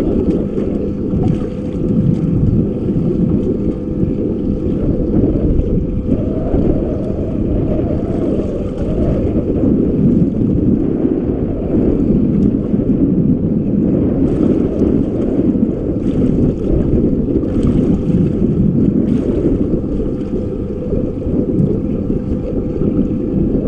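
Wind buffeting the microphone aboard an open fishing boat on choppy water: a steady low rumble with no pauses.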